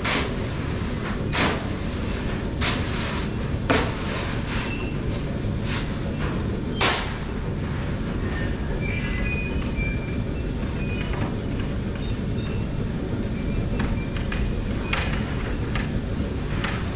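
Grain-unloading machinery running in a metal grain silo: a steady rumble with several sharp metallic knocks and faint short squeaks.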